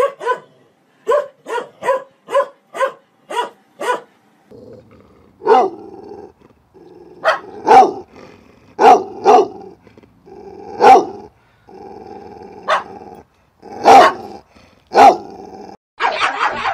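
Dogs barking. A quick run of about eight short barks comes first, then louder single and paired barks spaced about a second apart over a steady low background, and a faster, higher-pitched run of barking near the end.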